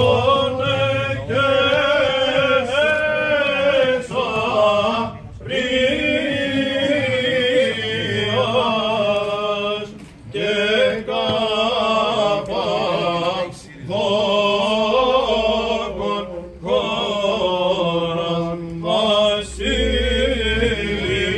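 Men's voices singing Byzantine chant in Greek, a hymn to Saint Basil, in long melodic phrases with short breaks for breath.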